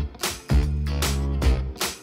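Upbeat background music with a steady beat and a bass line.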